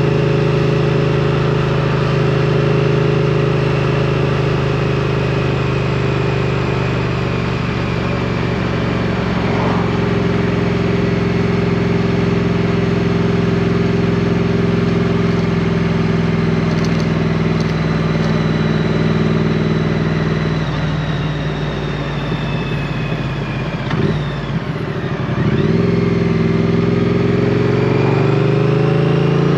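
2022 Triumph Street Twin's 900 cc parallel-twin engine running under way at a steady pitch, then the revs fall about twenty seconds in, with a short lull, and rise again over the last few seconds as the bike accelerates.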